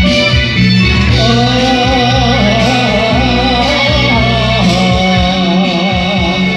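A man singing a slow song with vibrato into a microphone over a recorded instrumental backing track; the voice comes in about a second in, after the instrumental introduction.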